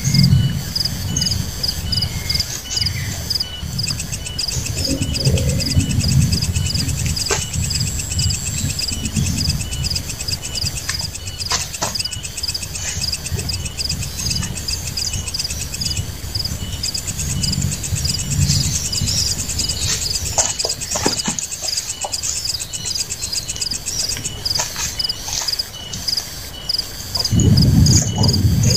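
Tropical forest insect chorus: a steady train of regular chirps a few times a second, with a fast buzzing trill that starts about four seconds in, drops out for a while and comes back. A few sharp knocks and some low rustling are heard over it.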